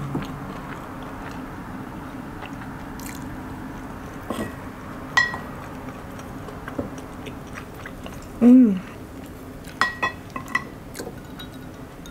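Close-up eating sounds: quiet chewing of spaghetti, with wooden chopsticks and a wooden spoon clicking and clinking against a ceramic bowl in scattered light taps, a few of which ring briefly. About two-thirds of the way through comes a short falling hum, the loudest sound.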